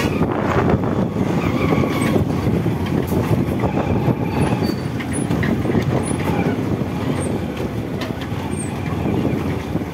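Riding noise on a motorcycle following close behind a truck: a steady, loud rush of engine and road noise, with the truck's engine running just ahead.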